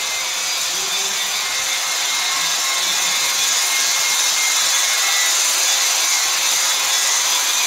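Power tool running continuously in the temple's ongoing construction work: a steady, high hissing whine that grows a little louder after about three seconds.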